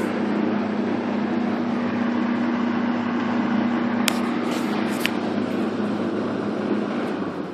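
12-inch Eskimo box fan running: a steady rush of air over the hum of its motor, with a few light clicks about four to five seconds in. It gets quieter near the end.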